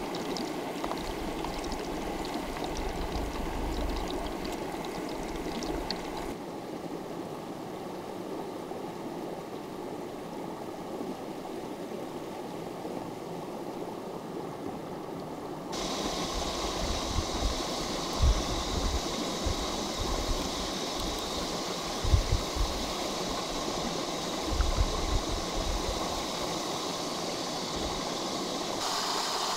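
A stream running steadily, its rushing changing abruptly twice as the sound shifts from one spot to another. A few dull low thumps come in the second half.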